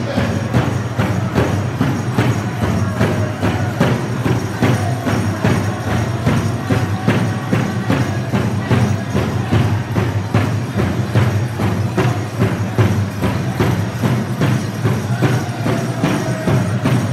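Powwow drum group playing a round dance song: several drummers strike a large drum in a steady, even beat while the group sings over it.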